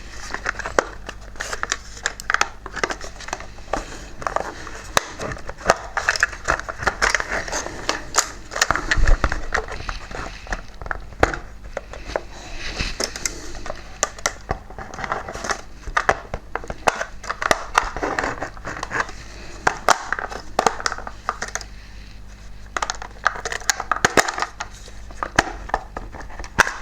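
Plastic body shell of a Mainline Class 45 OO-gauge model locomotive being prised and worked off its chassis: an irregular run of small clicks, creaks and scrapes of plastic against plastic as the clips are forced.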